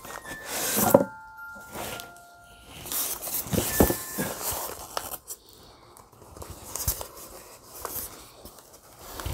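Cardboard boxes being handled and opened: an inner box slid out of an outer one, with cardboard scraping and rubbing, rustling packing paper and several sharp knocks. A few short ringing tones sound a second or two in.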